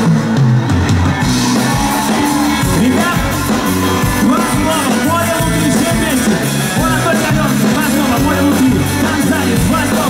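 Live rock band playing through a loud stage PA: drums, bass and electric guitar, with the singer's voice over the band.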